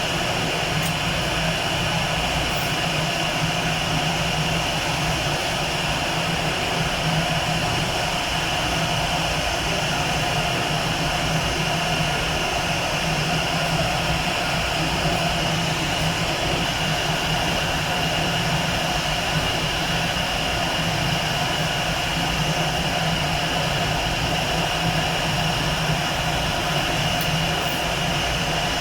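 Jet aircraft engines running steadily: an even hum with a constant whine, holding the same pitch and loudness throughout.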